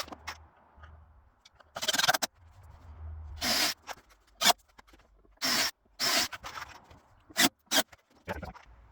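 A series of short scrapes and knocks on wood, about eight separate ones spread through, from parts being handled and fitted.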